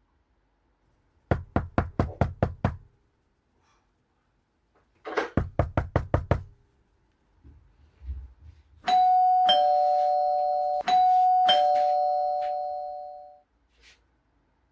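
Two quick runs of knocking on a door, about eight knocks each, followed by an electronic two-tone ding-dong doorbell pressed twice, the second chime ringing out.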